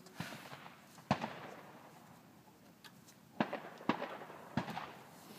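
Shotgun firing at a clay target: one sharp shot about a second in with a trailing echo, followed by a few quieter sharp pops about three to five seconds in.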